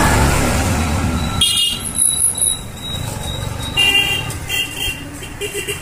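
A green three-wheeled CNG auto-rickshaw passes close by with a low engine rumble, which cuts off abruptly about a second and a half in. Quieter street sound follows, with several short high-pitched ringing tones in the second half.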